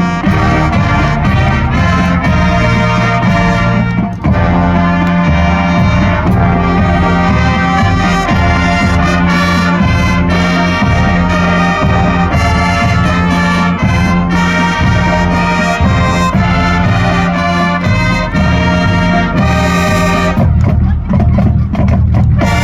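High school marching band playing a Christmas medley, with trumpets and trombones carrying the tune over a steady drum beat and a held low brass note.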